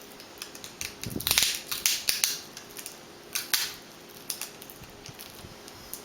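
Scratchy rustling and sharp little clicks as the laptop screen's video cable connector is worked loose from the back of the LCD panel, with the tape over it being pulled away. The noise comes in a cluster about one to two seconds in, then two clicks about halfway through and a few faint ticks after.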